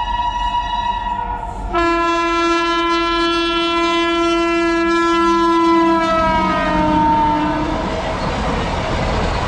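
Train horn: a note already sounding gives way about two seconds in to a lower, long blast that sags slightly in pitch as it goes. Near the end it fades into the steady rumble and clatter of a moving train.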